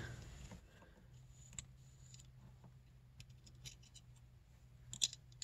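Faint clicks and scrapes of a digital caliper being slid and set against a power valve cable housing, with a few small ticks and one sharper click about five seconds in. A low steady hum runs underneath.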